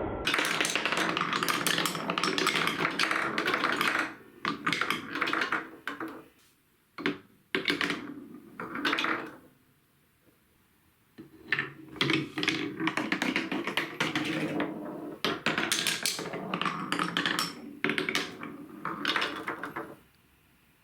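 Many marbles rolling and clattering down plastic TrixTrack marble-run track as a rapid patter of clicks and taps. It comes in two long stretches, thinning out after about four seconds, near quiet for a second or so around the middle, picking up again, and stopping abruptly near the end.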